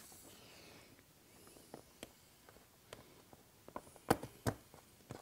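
Scattered light plastic clicks and taps as fasteners are worked into the plastic tabs of a motorcycle side fairing, with two louder clicks about four seconds in.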